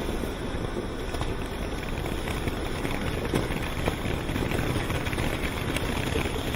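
Low-noise firework fountain (Kimbolton Blizzard) burning: a steady hissing rush of sparks with a few sharp crackles.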